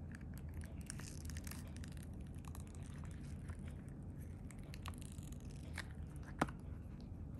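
Cured epoxy resin conch bowl being peeled out of a flexible silicone mold: faint, crunchy crackling as the resin separates from the silicone, with one sharper crack about six seconds in.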